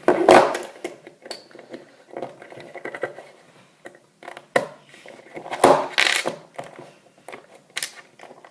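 Plastic Lego pieces clicking and clattering as they are handled and pressed together, with scattered sharp clacks. The loudest clatter comes right at the start and again about six seconds in.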